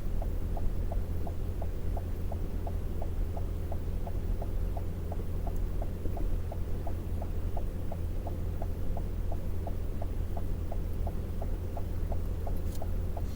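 Vehicle engine running at idle, heard from inside the cabin as a steady low hum, with a light regular tick about three times a second.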